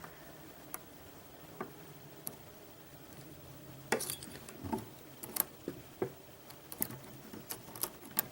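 Small metallic clicks and taps of lock picks and a tension tool working inside a Mul-T-Lock Interactive cylinder, a few single clicks at first, then quicker, more frequent clicking from about four seconds in.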